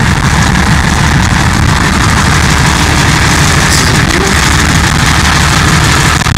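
Diesel engine of a forestry cable skidder running steadily, heard loud from the caged operator's seat just below its exhaust muffler.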